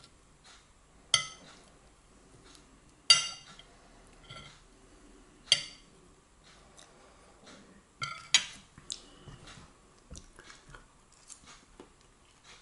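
Metal knife and fork clinking and scraping against a ceramic dinner plate while food is cut and eaten: several sharp clinks with smaller ticks between, the loudest about three seconds in.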